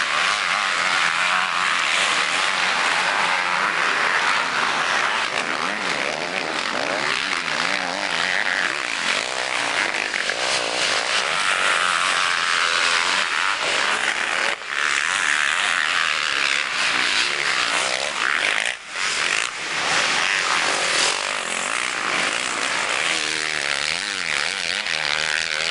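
Motocross bike engines revving up and down as riders race round the dirt track, a continuous buzzing with wavering pitch. The sound cuts out briefly twice in the second half.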